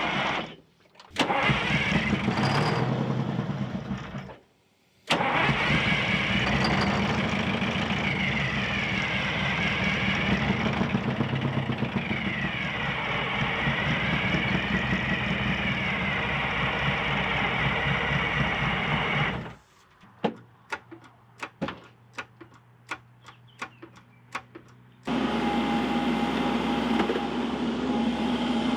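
Detroit Diesel 8V92 two-stroke V8 being cranked on the starter in several long bursts, turning over steadily without firing. The owner blames a lack of fuel: he suspects the mechanical fuel pump is shot. In one short quieter stretch there are only scattered sharp clicks.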